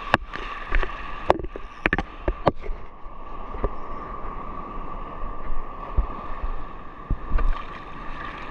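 Shallow surf washing and sloshing around a wading angler, with several sharp knocks in the first three seconds.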